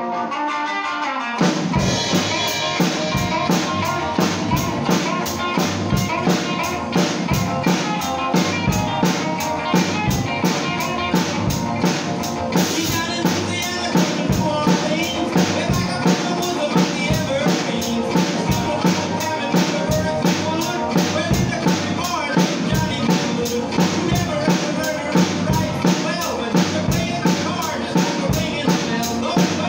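Acoustic drum kit playing a plain rock-and-roll beat along with a guitar-led rock-and-roll record: hi-hat and ride cymbal on every beat, bass drum only on the first beat of each bar, no fills. The drums come in about a second and a half in.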